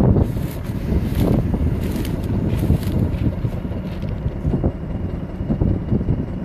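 Wind buffeting the microphone over the low rumble of the BSC1 locomotive running on the line, with a few faint clicks.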